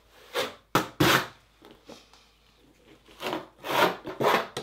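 Steel notched trowel scraping thin-set mortar across foam backer board in short strokes, with a pause in the middle, then a hand rubbing a pipe-seal patch flat into the mortar.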